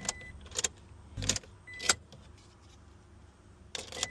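Car keys jangling and clicking as they are handled, with a few short high beeps and one dull thump about a second in.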